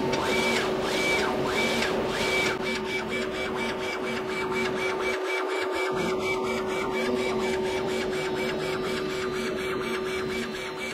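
Dual-head UV flatbed printer printing onto a silver coin, its print-head carriage running over the bed with a steady hum. A few repeated swells in the first couple of seconds give way to a rapid, even ticking.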